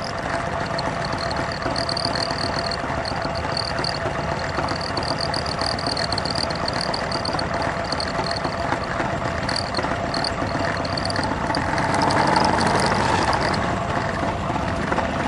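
Motorcycle engine idling and running slowly and steadily. The engine sound swells briefly about twelve seconds in.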